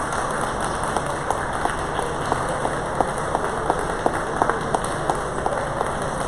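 Steady crowd noise of a busy exhibition hall, with a light, very regular tick about three times a second.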